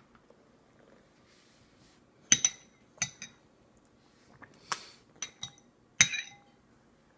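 A spoon clinking against a bowl: about eight sharp clinks in small clusters from about two seconds in, the loudest ones ringing briefly.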